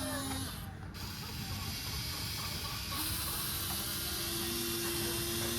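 Small electric motor of a radio-controlled excavator whining steadily: it stops about half a second in, starts again about three seconds in at a higher pitch, and winds down near the end, over a steady hiss.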